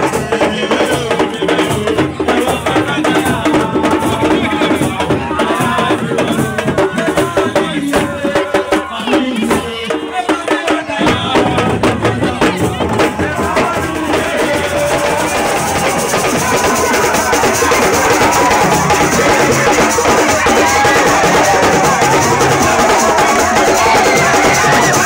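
Percussion-driven music with drums and rattles and voices singing over them. The low drums drop out briefly about halfway through, then the music comes back fuller and louder.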